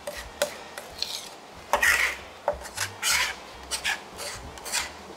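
A chef's knife blade scraping and pressing across a plastic cutting board, mashing anchovy into a paste. It makes a series of about ten irregular rasping strokes, the loudest about two seconds in.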